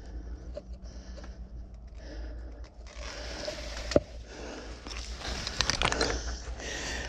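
A person breathing in short, soft puffs. From about three seconds in this gives way to rustling of corn leaves and clothing as he moves, with one sharp click about four seconds in.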